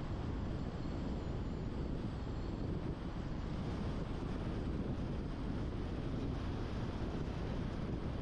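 Steady low rumble of road and wind noise from a car driving along a multi-lane road.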